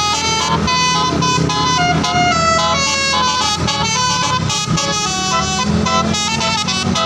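Tour bus 'telolet' horn playing a quick melody of stepping, multi-tone honks, with the bus's engine running low underneath.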